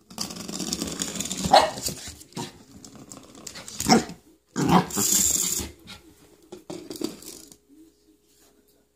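Shih Tzu–poodle puppy growling at play, with a few short barks in the first half.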